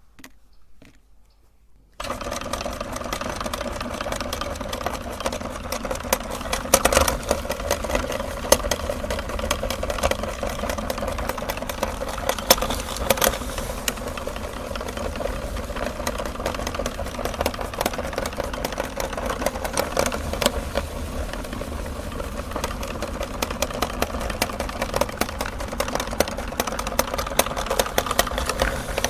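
Electric meat grinder switching on about two seconds in and running steadily, grinding Oreo cookies with dense crackling clicks over the motor's hum.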